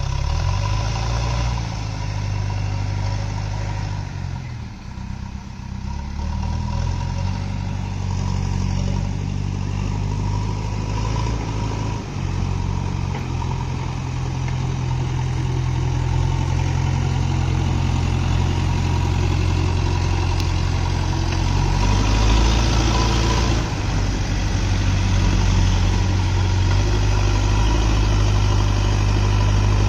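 JCB backhoe loader's diesel engine running steadily throughout, its pitch shifting as the load changes, with a brief dip about four to six seconds in and a rise a little past twenty seconds in.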